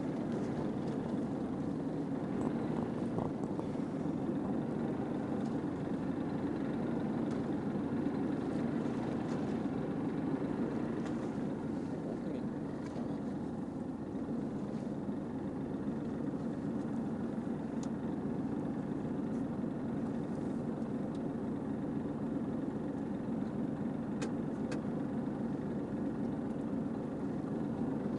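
A boat's engine running steadily, heard from on board as an even low drone.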